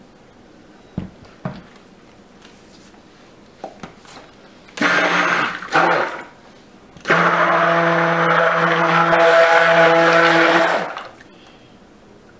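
Stick (immersion) blender mixing a bowl of cold-process soap batter: a short burst, a brief blip, then a steady run of about four seconds before it is switched off. A few light knocks come before it.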